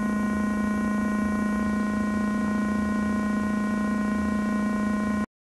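Steady electronic drone: a strong low hum with several fainter steady higher tones over a hiss, unchanging in pitch and level, cutting off suddenly just before the end.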